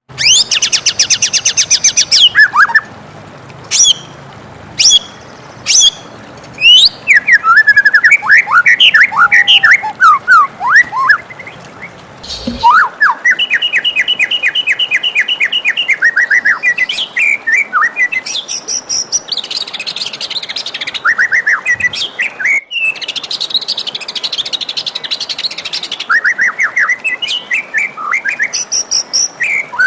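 White-rumped shama (murai batu) singing: loud, varied phrases of rapid trills, whistled glides and sharp single notes following one another with short gaps.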